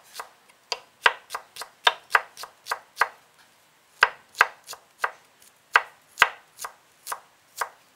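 Kitchen knife cutting fresh ginger into thin julienne strips on a wooden cutting board: sharp, separate taps of the blade on the board, about three a second, with a pause of about a second near the middle.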